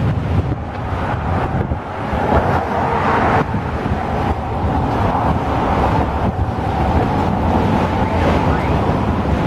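A freight train of autorack cars rolling past, a steady rumble of steel wheels on the rails with a thin high whine running through it. Wind buffets the microphone.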